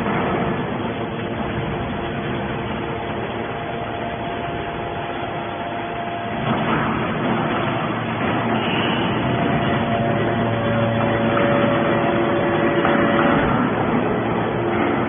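Hydraulic scrap metal baler running: steady machine noise with a hum of several held tones, growing louder and heavier about six and a half seconds in.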